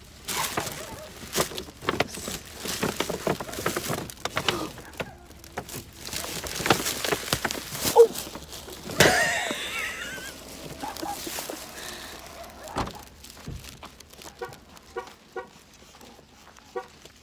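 Hurried footsteps and rustling handling, with scattered knocks and thumps, and a short high sliding cry about nine seconds in. Near the end a dog barks over and over in the distance.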